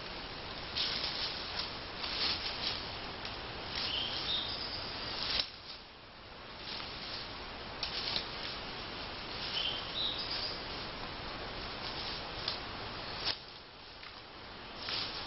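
Woodland ambience: a steady hiss with scattered rustling, and two short high bird chirps, about four and about ten seconds in.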